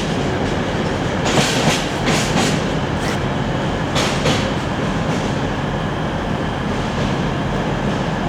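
A freight train of coal hopper wagons rolling past, its wheels rumbling and clattering on the rails. In the first half there are short bursts of high-pitched hiss and screech from the wheels, which die away after about four seconds, leaving a steady rumble.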